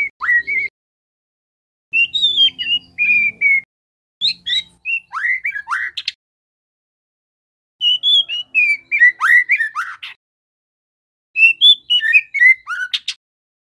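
Juvenile white-rumped shama singing in short phrases of quick chirps and whistled notes that sweep up and down, with pauses of a second or two between phrases: a young male's practice song while it is still learning to sing.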